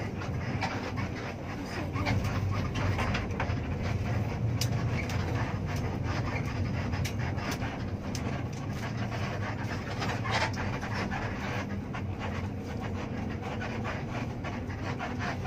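Intercity bus engine running at low speed, heard inside the cabin near the driver: a steady low drone with many small clicks and rattles.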